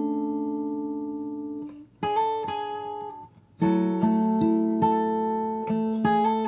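Simon Fay Model 1 acoustic guitar, with a Sitka spruce top and desert ironwood back and sides, played capoed high on the neck. A chord rings out and fades, a few plucked notes come in about two seconds in, and after a brief pause a new phrase of plucked notes and chords starts about three and a half seconds in.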